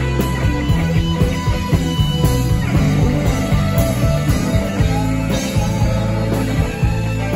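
Live rock band playing: electric guitar over bass and drums with a steady beat.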